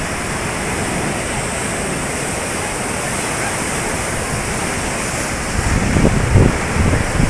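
Sea waves surging against the shore, a steady rushing. About five and a half seconds in, wind starts buffeting the microphone in gusts.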